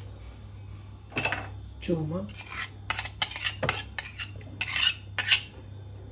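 A metal spoon scraping and tapping against a small ceramic saucer and an enamel bowl, a quick run of sharp clinks and short scrapes as grated garlic is scraped off into the bowl.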